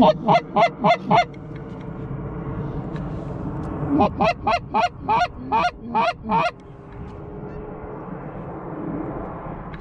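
Canada goose honks in two quick runs: about six short honks in the first second, then about eight more from four to six and a half seconds in, each honk dropping in pitch.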